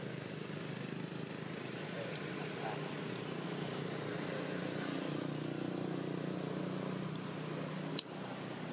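Steady rumble of road traffic, swelling slightly midway as a vehicle goes by, with one sharp click near the end.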